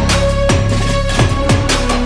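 Background electronic music with a steady beat of punchy kick drums.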